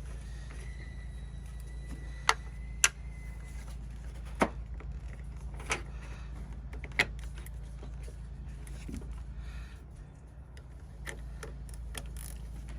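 Wrench clinking against the side-post battery terminal bolts as they are threaded in by hand: about five sharp, separate metallic clicks over a steady low hum.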